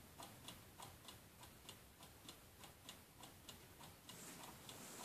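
Near silence with a faint, regular ticking, a few ticks a second.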